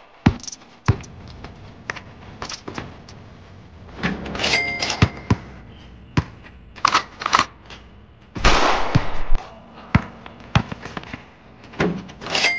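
A basketball bouncing and thudding on a concrete court during one-on-one play, in irregular single hits. A brief ringing sound comes about four and a half seconds in and again at the end, and a loud rushing noise lasts about a second from about eight and a half seconds in.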